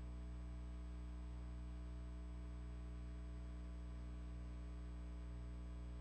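Steady low electrical hum on the audio line: a mains hum with a row of overtones, unchanging throughout, and no other sound above it.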